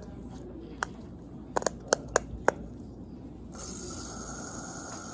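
Sharp clicks and taps of a plastic fidget spinner being handled and flicked, about six in quick succession. Then a steady faint whir from about three and a half seconds in as the spinner turns.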